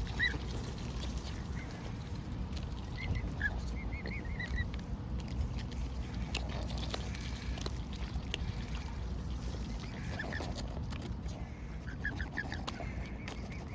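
An animal's short, high squeaky calls, a few at a time in quick clusters, over a steady low rumble.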